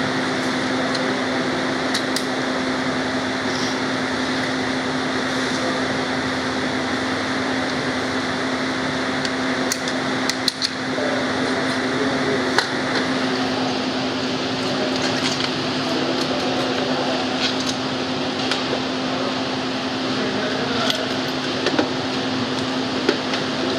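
Steady electric machine hum, like a fan or air conditioner, with a constant low tone. A few light metallic clicks come from engine parts being handled, near the middle and again near the end.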